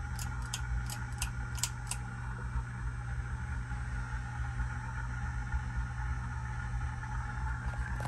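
Hunter low-profile ceiling fan running with a steady hum and whoosh. In the first two seconds, about six quick, sharp clicks come as its pull chain is worked.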